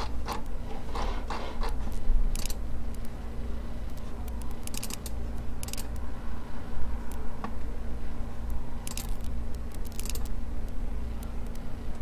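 Steady low hum with several brief scraping clicks a few seconds apart.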